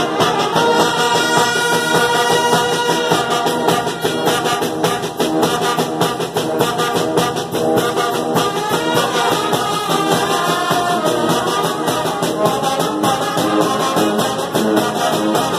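Mexican banda brass band playing a lively tune: trumpets and trombones carry the melody over tubas, with quick, steady beats on a snare drum and a bass drum (tambora).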